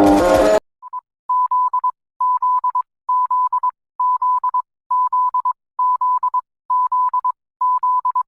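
Emergency alert tone: a single mid-pitched electronic beep repeating in quick stuttering clusters, about one cluster a second, starting right after guitar music cuts off about half a second in.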